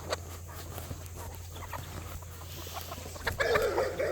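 A dog making short, wavering whining sounds near the end, over a low steady hum and scattered small clicks.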